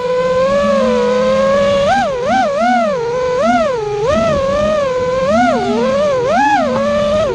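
Brushless motors of an FPV freestyle quadcopter on KISS 32A ESCs, heard from the drone's on-board camera. The motor whine holds a fairly steady low pitch at first; from about two seconds in it swoops up and down about twice a second as the throttle is punched and eased during tricks.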